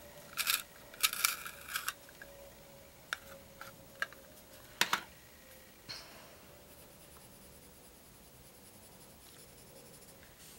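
A colored pencil being turned in a small handheld canister sharpener, a quick run of rasping strokes in the first two seconds. Then a few light clicks and one sharper click about five seconds in, after which it goes quiet.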